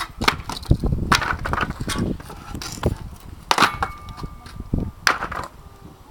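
Wooden pallet boards cracking and clattering as they are levered apart with a long-handled pallet breaker: a string of sharp cracks and knocks, with a thin squeal lasting about a second midway.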